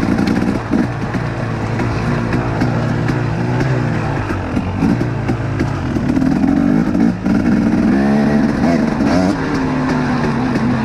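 2019 KTM 250XC two-stroke dirt bike engine running under load on a trail, its pitch rising and falling with the throttle, with a sharp rise in revs about eight seconds in.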